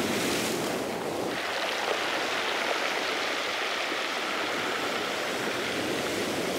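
Sea surf washing up a beach: a steady rush of waves, brighter and hissier for about the first second.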